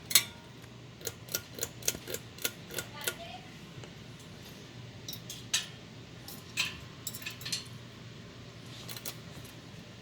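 Sharp metallic clicks and clinks of small metal parts being handled: a loud one at the start, then about three a second for a couple of seconds, more scattered ones a few seconds later and a few faint ones near the end. A steady low hum runs underneath.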